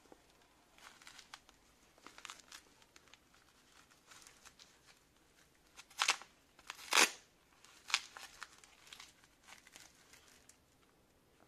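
Rustling and rubbing of leather-and-mesh riding gloves being handled. A few short, louder rasps come from the hook-and-loop wrist straps being worked, the loudest about six and seven seconds in.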